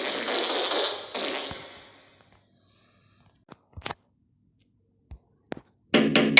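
A rough shuffling or rustling noise fades out, followed by a few isolated sharp taps. Near the end, a quick run of even, pitched percussive knocks begins, about three a second.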